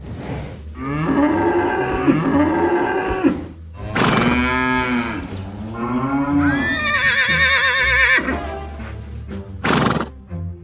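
Recorded cow moos: several long, low moos one after another, then a higher, quavering horse whinny about two-thirds of the way through. Sharp clicks come at the start, about four seconds in and near the end.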